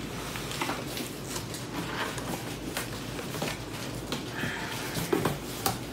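A cardboard box and its packing being handled and pulled open: scattered rustles, scrapes and light knocks, a little sharper near the end.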